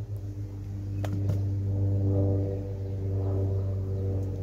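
Steady low hum of a running engine or motor, with two light clicks about a second in.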